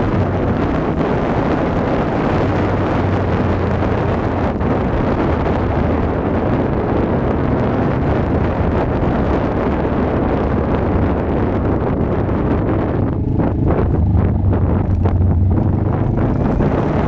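Wind buffeting the microphone of a moving motorcycle, a steady loud rush, with the low drone of the Kawasaki Vulcan S 650 engine underneath that comes up stronger near the end.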